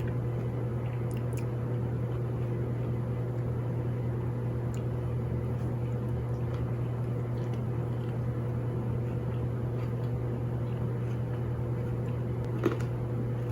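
Steady low electrical or mechanical hum in a small room, with a single faint click near the end.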